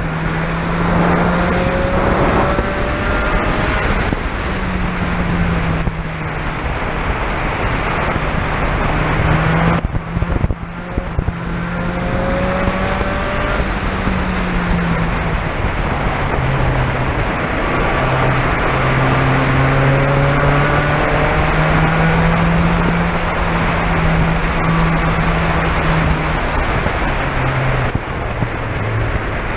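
Spec Racer Ford Gen3's four-cylinder engine under race load, heard from the open cockpit. Its pitch climbs and then drops at each gear change, over a steady rush of wind and road noise.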